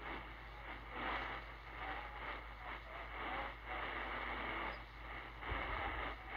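Shortwave static and hiss from a Sihuadon D-808 portable receiver tuned to Radio Nikkei 1 on 6055 kHz. The weak signal fades up and down in waves, with no clear programme audible through the noise, and there is a brief low bump about five and a half seconds in.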